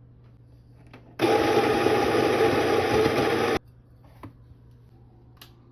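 Electric coffee grinder running for about two and a half seconds, grinding beans for an espresso dose, then stopping abruptly.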